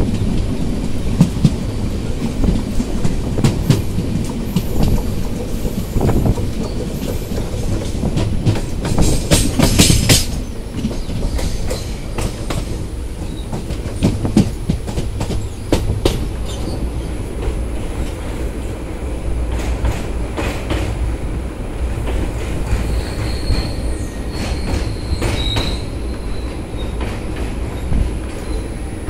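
Indian Railways passenger coach running at speed, heard at the open doorway: a steady rumble of wheels on rail with clicks and wind. There is a brief loud rush around ten seconds in, and faint high wheel squeals later on.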